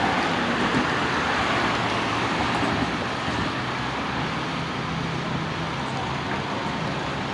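Road traffic: a motor vehicle's engine running with tyre noise on the road, steady and slowly fading.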